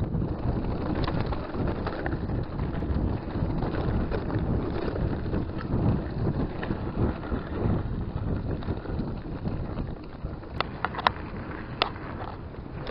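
Wind buffeting the microphone as a gusty low rumble that eases about ten seconds in, with a few sharp clicks near the end.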